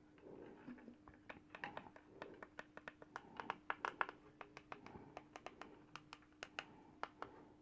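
Many small sharp clicks and taps, several a second, from a screwdriver and small screws being worked out of an induction cooker's touch-pad circuit board, over a faint steady hum.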